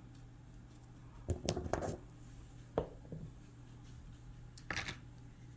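Cut rock pieces being handled and set down: a few light clicks and knocks in short groups, over a faint steady low hum.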